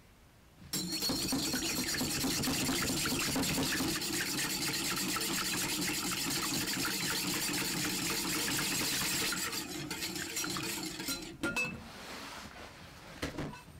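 Stainless steel wire balloon whisk beating a raw egg in a glass bowl: rapid clinking of the wires against the glass over a wet sloshing. It starts about a second in, slows and thins out after about nine seconds, and ends with a few light taps.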